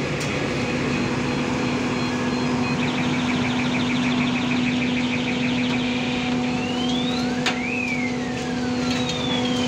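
Hydraulic truck tippler machinery running with a steady hum. From about three to six seconds in, a rapid pulsed electronic beeping sounds, and later several long gliding tones rise and fall like a warning siren.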